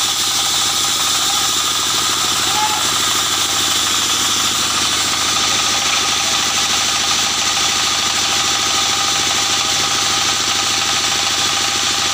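Large sawmill band saw and its drive running steadily, a constant machine hum with several steady tones and a fast, even pulsing underneath.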